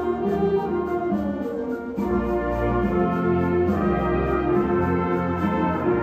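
Concert band of woodwinds and brass playing held chords. About two seconds in, the harmony moves to a new chord with a heavier bass underneath.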